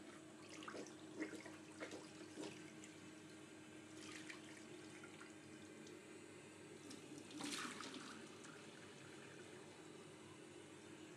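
Faint water and handling sounds at a bathroom basin: a few small knocks near the start, then a brief splash of water about seven and a half seconds in, over a steady low hum and hiss.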